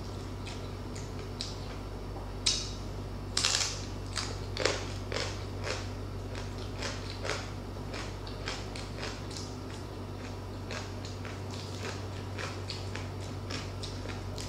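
Close-miked eating sounds: crunching and chewing of crispy deep-fried pork skin (crispy pata), with a run of loud crunches a few seconds in and lighter crackling chews after.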